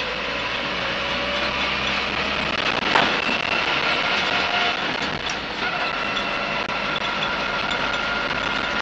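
Land Rover Series 3 109 breakdown truck on the move, heard from inside the cab: steady engine and road noise, with a sharp knock about three seconds in and a steady whine that comes in a little past halfway.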